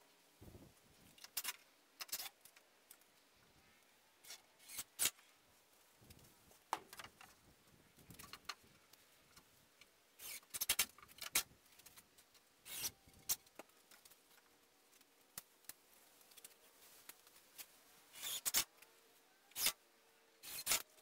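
Scattered sharp clicks and knocks of wooden boards being handled and fitted against a raised bed's corner post, with a quick cluster about halfway through.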